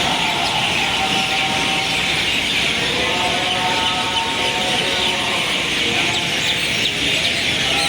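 City street ambience: a steady bed of traffic noise with many birds chirping over it.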